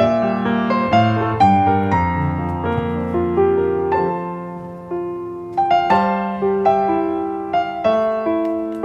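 Background piano music: a gentle melody of struck notes, about two a second, over sustained lower chords.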